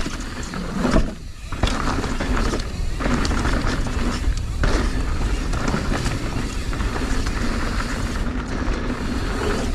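Mountain bike rolling over a dirt trail: a steady rush of tyre and drivetrain noise with a rumble of wind on the camera microphone.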